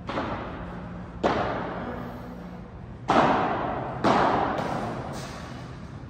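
Four loud impacts at irregular spacing, the last two the loudest, each echoing for about a second in a large hall, over a low steady hum.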